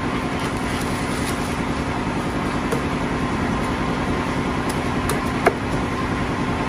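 A motor or engine running with a steady hum, and a single cleaver chop on a wooden chopping block about five and a half seconds in.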